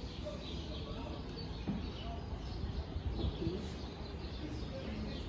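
Quiet street ambience: a low steady hum with faint, scattered bird calls and chirps.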